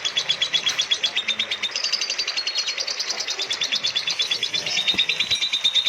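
Lovebird giving a long non-stop chattering trill of rapid, high, evenly repeated notes, about ten a second, without a break.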